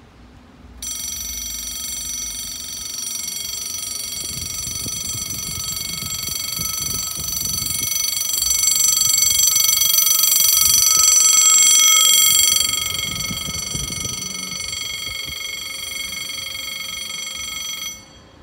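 French level crossing warning bell sounding a steady, high ringing alarm while the barriers lower. It starts abruptly about a second in, is loudest in the middle, and cuts off suddenly near the end once the barriers are down.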